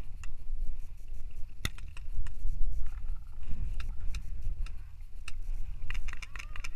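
Paintball markers popping at irregular intervals, one shot much louder about two seconds in, over a steady low rumble of wind buffeting the action camera's microphone. Near the end the shots come thicker, with faint shouting.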